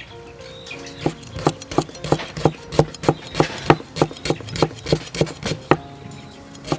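Cleaver slicing a lemongrass stalk on a thick round wooden chopping block: a steady run of knocks, about three a second, that stops briefly near the end.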